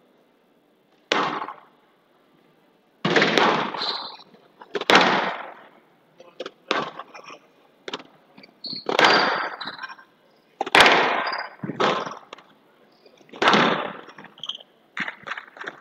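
Squash rally on a glass court: the ball cracks off the rackets and walls about every one to two seconds, each hit ringing on briefly in the hall. Court shoes squeak in between, and a quicker run of lighter knocks comes near the end.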